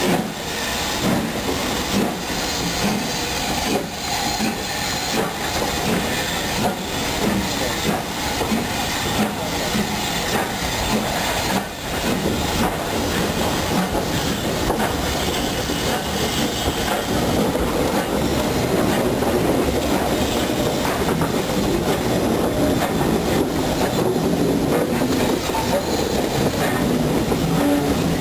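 BR Standard Class 5 4-6-0 steam locomotive 73096 pulling a train away, heard from the train: a steady running rumble with steam hiss and wheels clicking over rail joints and points, a little louder from about halfway on as it gathers speed.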